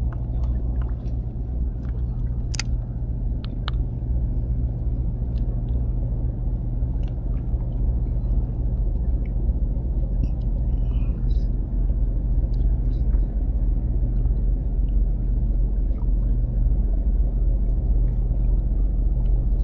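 A steady low engine drone, with a few light clicks over it in the first few seconds.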